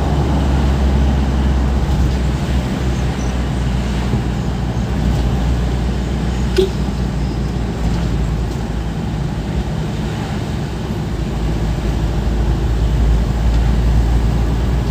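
Vehicle engine and road noise heard from inside the cabin while driving: a steady low rumble, with one brief click about six and a half seconds in.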